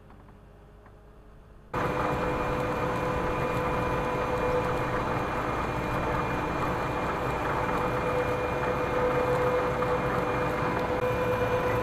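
Grimme CS 150 Combi Star clod and stone separator working through the soil, heard up close at its front end: a loud, steady mechanical noise with a steady whine in it. It starts abruptly about two seconds in, after a faint distant hum.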